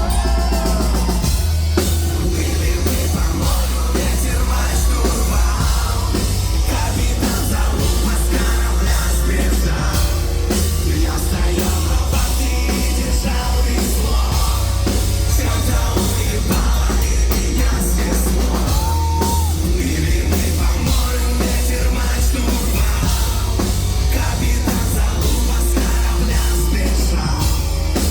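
Live metal band playing loud and dense, drum kit driving over a heavy bass, with sung and shouted vocals in places.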